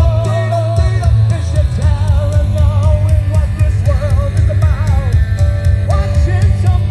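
Live rock band playing: electric guitar and bass guitar over drums, with a wavering sung line on top.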